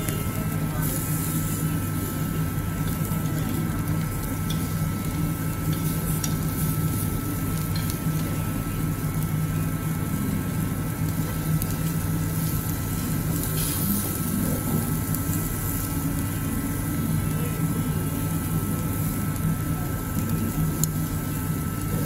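Marinated meat sizzling on a wire grill over a charcoal burner, with brief louder spits of hiss now and then, over a steady low hum.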